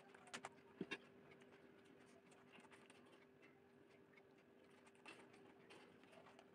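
Faint eating sounds: a couple of light clinks in the first second as a steel bowl is set down, then soft clicks and ticks of fingers mixing rice on a steel plate, over a steady faint hum.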